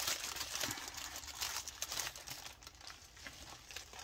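Small plastic bags of diamond-painting drills crinkling as they are handled. The crackling is a little louder in the first second or so, then softer.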